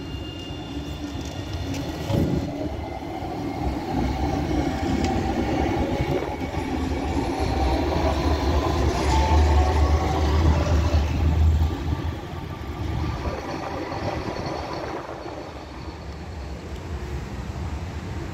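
Tram passing close by: the rumble of its wheels on the rails grows, is loudest about eight to twelve seconds in, then fades, with a faint high whine over it. A single knock about two seconds in.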